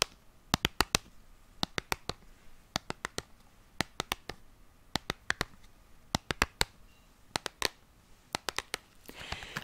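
Fingernails tapping and clicking on a small cardboard box of chalk, in quick clusters of sharp clicks with short pauses between them.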